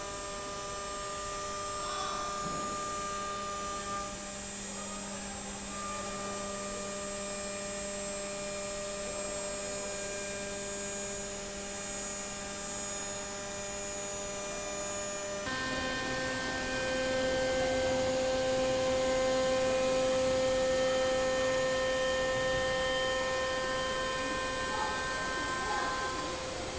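Five-axis CNC machining center running: a steady electric whine made of several held tones. A little past halfway it switches abruptly to a different, slightly louder set of tones with more noise under them.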